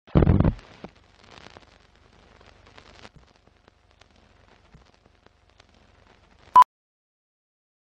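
Film-leader countdown intro sound: a deep hit at the start, then faint scattered ticks and crackle, and a single short beep about six and a half seconds in, the countdown's sync beep.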